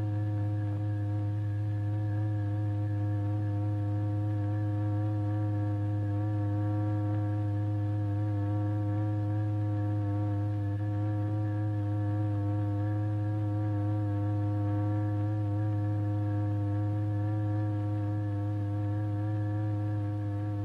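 Steady low electronic tone from the oscillator that drives the vibrating membrane, a constant hum with fainter higher overtones, unchanging in pitch and level.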